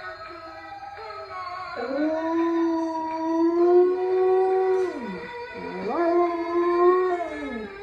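Boxer-mix dog howling: long howls that rise, hold a steady pitch, then fall away, one starting about two seconds in and another about six seconds in.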